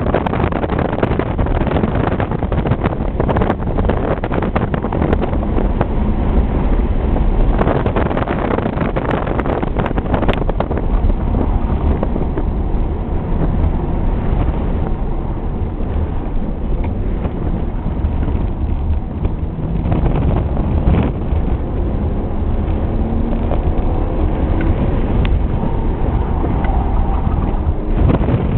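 A BMW 3 Series heard from inside the cabin during a hard autocross run: the engine running at high revs with its pitch rising and falling, over steady tyre and wind noise.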